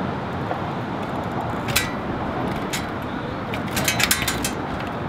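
Sharp metallic clicks from a bicycle's rear hub brake fitting being adjusted by hand: one click about two seconds in, another a second later, then a quick run of several near the end, over a steady outdoor background of traffic noise.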